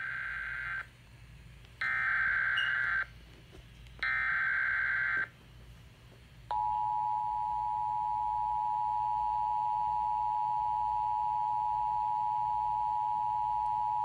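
Emergency Alert System broadcast heard over an FM radio: three data-tone bursts about a second long each (the SAME header), then about a second later the steady EAS two-tone attention signal, held for about eight seconds. It signals a child abduction emergency (Amber Alert).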